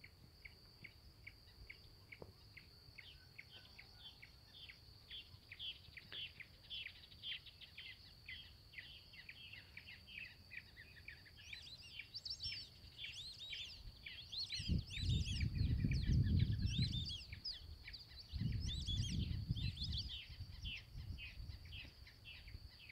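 Birds calling at a pond in rapid short chirps, busier and higher-pitched through the middle, over a steady high-pitched insect drone. Two spells of low rumble come about 15 and 19 seconds in.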